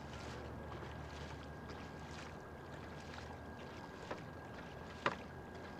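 Double-bladed paddles of a tandem kayak dipping and splashing in calm water, about two strokes a second. A sharp click sounds about five seconds in, with a weaker one a second earlier.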